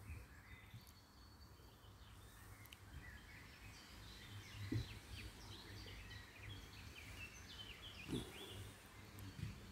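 Faint outdoor background noise with small birds chirping repeatedly, and two low thumps partway through.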